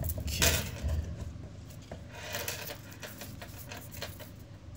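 Trading cards being gathered and slid against each other and across a wooden tabletop: a rubbing scrape about half a second in and a softer one around two seconds in.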